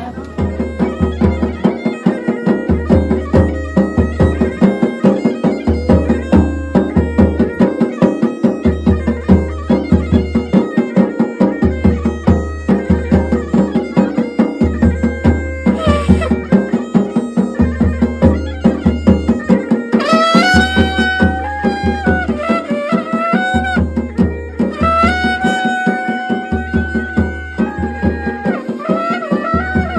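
Traditional folk music: a reed-like melody over a steady repeating drum beat, with a high held melody line coming in about two-thirds of the way through.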